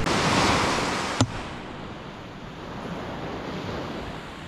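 Sea waves washing on a pebble shore with wind on the microphone. A louder rushing hiss fades over the first second, a single sharp knock comes just over a second in, and a quieter steady wash follows.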